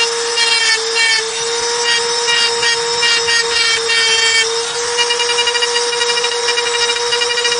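Handheld electric rotary engraving tool running at a steady high whine while its bit grinds a line into dark stone. The scratching chatter comes and goes, then turns into a rapid, even pulsing about five seconds in.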